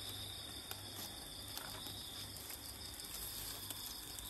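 Crickets trilling steadily in a constant high-pitched drone, with a few faint ticks scattered through it.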